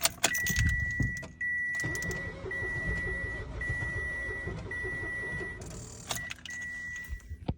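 Car's dashboard warning chime pulsing about once a second while the starter tries to crank the engine off a weak jump-starter pack, with a low uneven rumble and a few clicks. The engine does not start.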